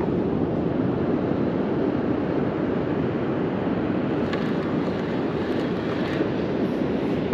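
Steady rushing noise of wind on the microphone and breaking surf, with a few faint ticks.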